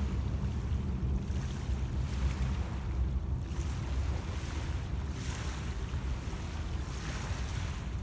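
Wind buffeting the microphone with a steady low rumble, over small lake waves washing onto a pebble beach in soft surges every second or two.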